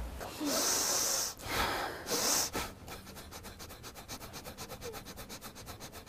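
Three forceful hissing breaths in the first two and a half seconds, made as part of a breathing exercise. They are followed by fast, steady rhythmic rubbing at about seven strokes a second.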